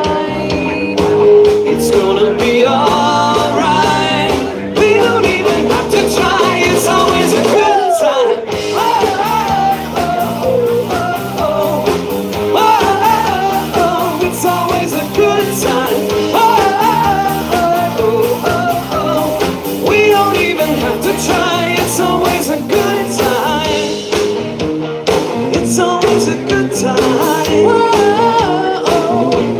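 Live rock band playing, with electric guitars, drums and a singer.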